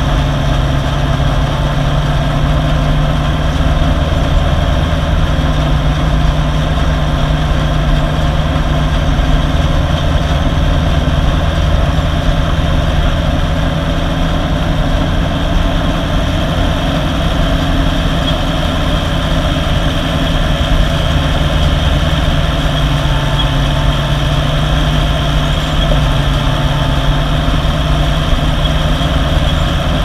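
International Harvester 986 tractor's six-cylinder diesel running steadily at working speed while pulling an M&W round baler, a constant drone with no change in pitch.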